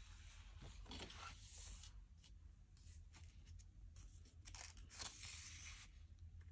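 Faint rustling of heavy planner pages being turned in a discbound planner: a soft swish about a second in, a few light clicks, then a longer swish near the end.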